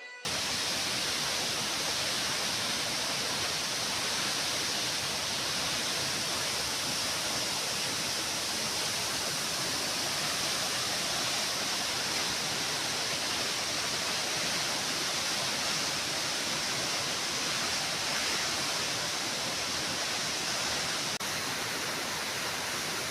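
A waterfall's steady rush of falling water, an even hiss with no break.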